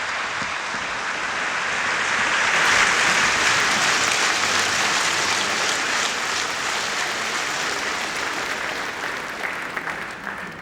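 A concert audience applauding. It swells over the first few seconds, then slowly dies away near the end.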